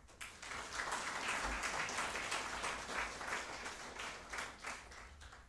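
Audience applauding, a dense patter of many hands clapping that dies away toward the end.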